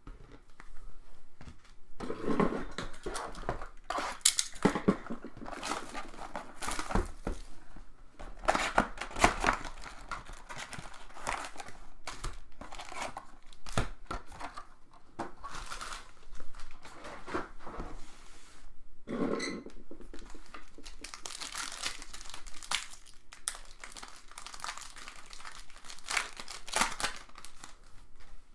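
Trading card pack wrappers crinkling and tearing as packs are ripped open and handled, in irregular rustles and crackles.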